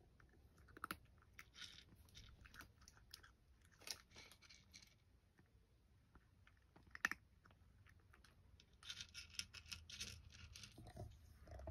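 A cat crunching dry kibble, in irregular bursts of small crunches with short pauses between them. There is one sharper click about seven seconds in.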